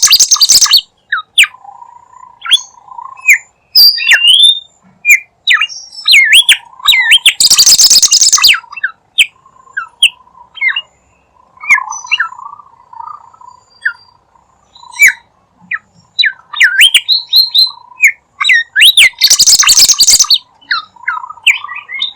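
A bird known in Indonesia as the bimoli singing continuously as a lure call: rapid runs of short swooping chirps and whistles. Three loud, harsh, rasping bursts about a second long break in, one at the start, one about a third of the way through and one near the end.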